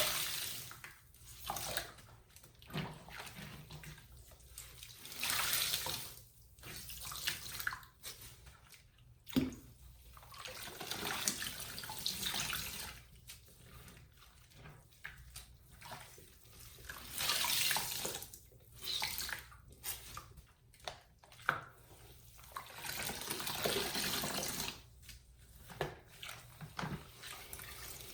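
Wet sponges squeezed over and over, each squeeze letting out a gush of water that lasts a second or two, with short quieter pauses between squeezes.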